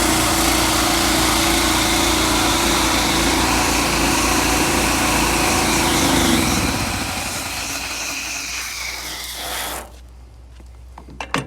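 Pressure-washing rig's engine-driven pump running while soap is sprayed, a steady hum under a loud hiss of spray. About six seconds in the hum sinks in pitch, and the sound fades and cuts off near ten seconds.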